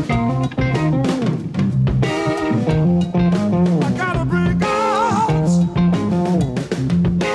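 Rock music in an instrumental passage: guitar playing over bass guitar and a drum kit.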